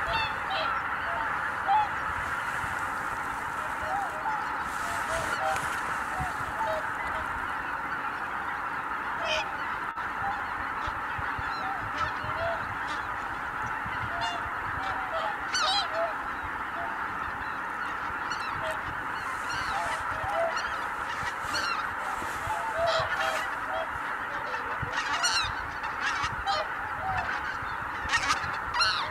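A huge flock of greater white-fronted geese honking together in a dense, unbroken chorus, with single nearer calls standing out, as the flock lifts off the roost all at once and flies out.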